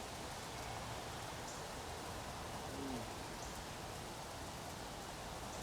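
Steady hiss and patter of light rain, with one short, low hoot-like sound about three seconds in.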